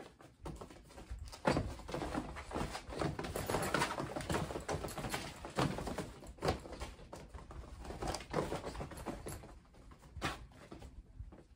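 Several kittens scampering and pouncing on a fabric playpen floor: quick irregular patter and scrabbling of paws with soft thumps as they land. It is busiest through the middle and dies down near the end.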